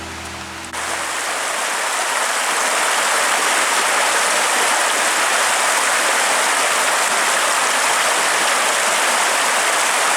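Falling water of a waterfall rushing steadily. It comes in sharply about a second in, as background music fades out.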